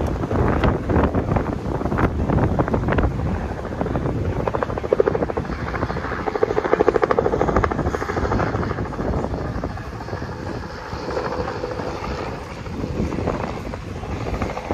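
A helicopter flying overhead, its rotor beat loudest about six to eight seconds in, with wind blowing on the microphone.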